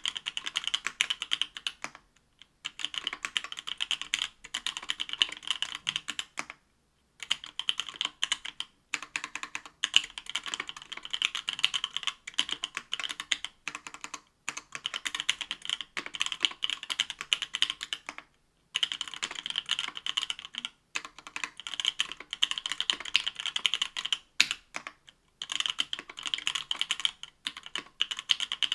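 Typing on an Octagon V3 mechanical keyboard with stock 43 Studio Toy Bricks linear switches (63.5 g), an aluminium plate and GMK keycaps: a dense, fast clatter of keystrokes in runs, broken by brief pauses every few seconds.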